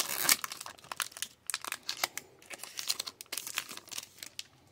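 Foil wrapper of an Upper Deck hockey card pack crinkling and crackling as it is torn off and the cards are slid out. It is loudest in the first half second, then thins to scattered crackles and dies away near the end.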